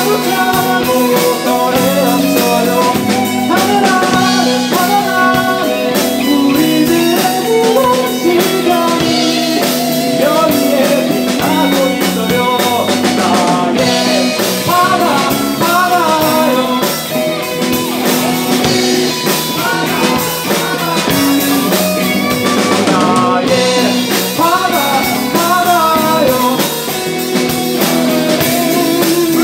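Live rock band playing: electric guitars, bass and drum kit, steady and loud throughout.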